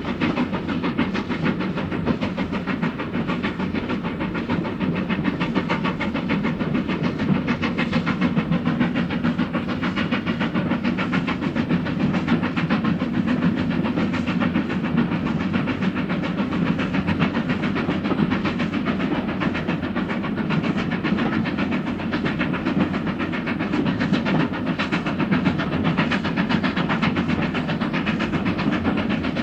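Steam-hauled train running steadily on the rails, a continuous fast rhythmic clatter with hiss.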